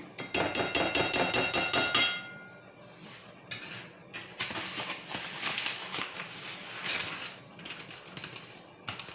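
A quick run of taps on an enamel mixing bowl, about ten a second for some two seconds, the bowl ringing under them. A few seconds of rustling follow.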